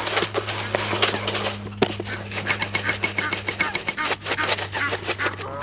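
Small dry 2 mm fishing pellets and crushed pellet being mixed by hand in a bucket: a dense, continuous rattle of many small clicks.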